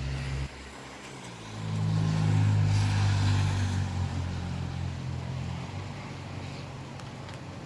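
A motor vehicle passing by: its engine hum and tyre noise swell about a second and a half in, are loudest a couple of seconds later, then fade away.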